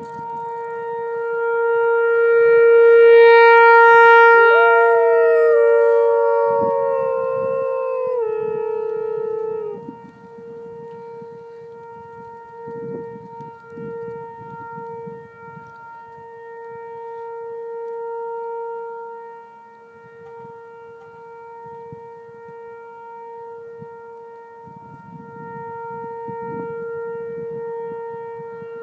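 Outdoor warning siren holding one steady tone, swelling and fading in loudness as it sweeps around, loudest about four seconds in and again later. A second, higher wail slides down in pitch for a few seconds about five seconds in.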